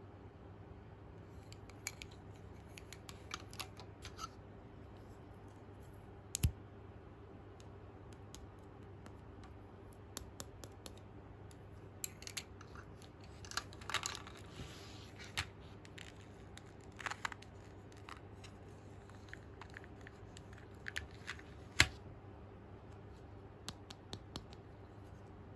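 Small plastic toy pieces handled close up: scattered clicks and taps of plastic and fingernails, with a short scraping rustle about 14 seconds in. The sharpest clicks come about 6 seconds in and near 22 seconds, the second the loudest. A faint steady hum lies underneath.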